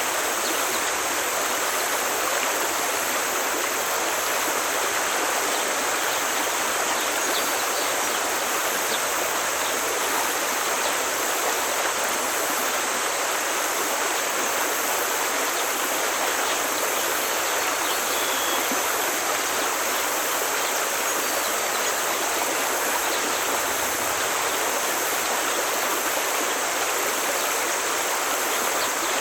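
Forest stream flowing: a steady, even rush of water.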